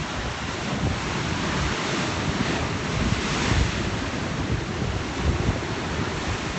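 Sea waves washing on the shore, with wind buffeting the phone's microphone in gusts.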